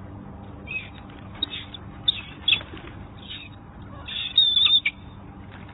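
A flock of pigeons flapping their wings in short, scattered bursts, the loudest cluster about four seconds in.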